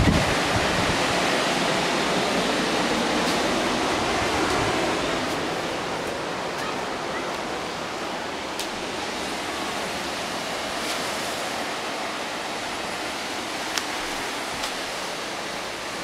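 Steady wash of ocean surf breaking on a beach. About six seconds in it turns softer and duller, heard from inside a room, with a few light clicks near the end.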